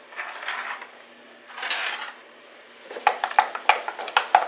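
Wooden spoon stirring wet muffin batter of mashed squash, egg and melted butter in a glass mixing bowl: two short wet swishes, then from about three seconds in a quick run of taps and clinks as the spoon knocks the side of the bowl.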